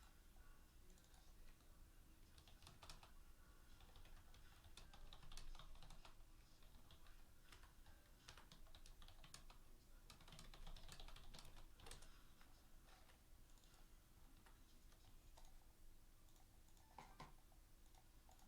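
Faint typing on a computer keyboard: irregular key clicks, coming in short flurries.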